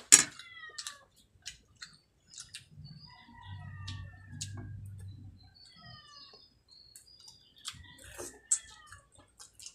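Close-up eating sounds: chewing and lip smacks, opening with a sharp clink of a metal utensil on the plate. Short, high, falling chirps come and go in the background, and a low hum runs for about two seconds in the middle.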